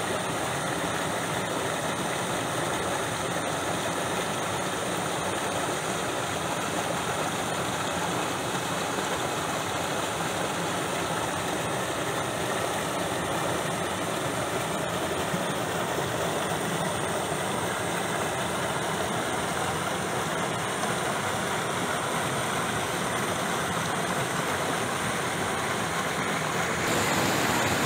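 Swift river water rushing steadily over a low rocky cascade, a little louder near the end.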